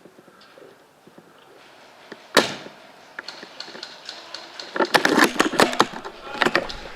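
A single sharp crack about two and a half seconds in, then a rapid clatter of clicks and knocks around five seconds and again near the end.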